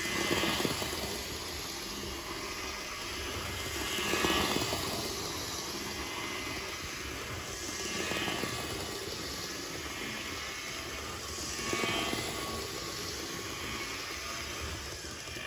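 H0-scale Roco model of a class 215 diesel locomotive pulling two freight wagons round a circle of track: a steady whirr of its small electric motor and wheels on the rails. The sound swells each time the train passes close, four times about every four seconds.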